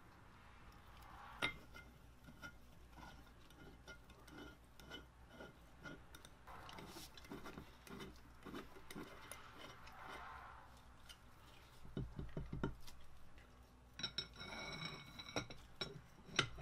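Quiet clicks and clinks of small steel parts and a hex key being handled while a lathe turret tailstock mechanism is put back together, with a few dull knocks past the middle and a short ringing metallic clink near the end.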